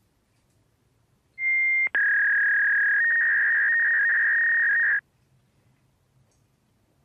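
Electronic beep sound effect. A short, high beep comes about a second and a half in, then a long, slightly lower steady tone lasts about three seconds and cuts off suddenly.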